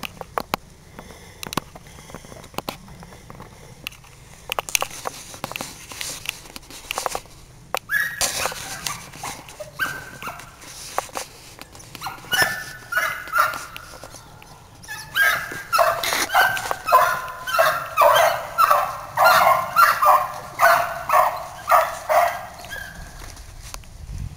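Rabbit hounds baying on the trail of a jumped rabbit, starting about a third of the way in and building to a steady chorus of about two calls a second in the second half. Sharp snaps and clicks before the dogs open up.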